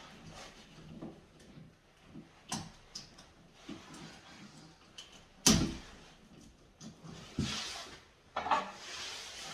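Electrical tape being pulled off the roll with short rasping rips and wrapped around a light switch's wire terminals, amid handling clicks and one sharp knock about halfway through.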